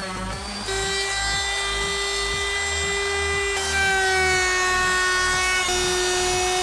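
A sander's hum for the first moment, then a DeWalt router's motor running with a steady high whine as it routes a wooden panel. Its pitch shifts in small steps and sags slightly near the middle as the load changes.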